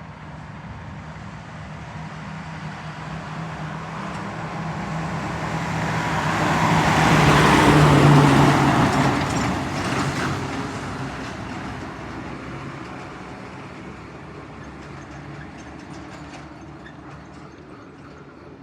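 Fire engine driving past: its engine drone and road noise build up, peak about eight seconds in, then fade away.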